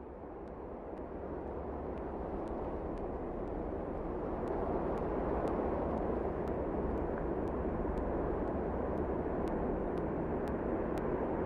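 A steady rushing noise that fades in and swells over the first few seconds, then holds, with faint regular ticks about twice a second.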